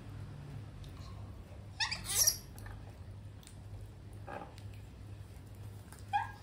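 Baby monkey giving short, high-pitched squeaking calls, three in all, the loudest about two seconds in.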